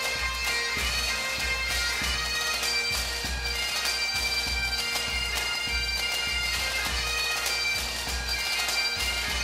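Bagpipe music: a melody played over a steady drone, with a low pulsing beat underneath.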